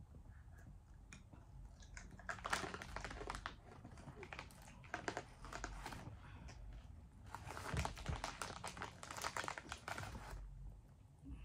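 Plastic candy wrapper being crinkled and picked at while someone struggles to open it: faint bursts of small crackles and clicks, busiest about a third of the way in and again from about two-thirds of the way through, then easing off near the end.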